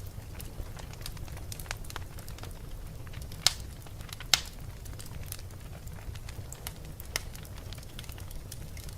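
Wood fire burning in a fireplace: a steady low rumble with frequent small crackles, and two louder pops about a second apart near the middle.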